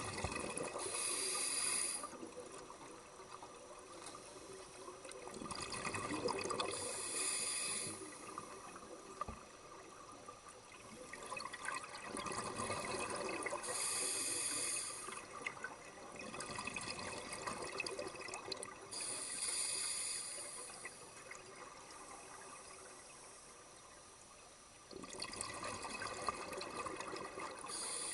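Water bubbling and trickling, swelling and fading in a slow cycle about every six seconds, with a brief hiss at the height of each swell.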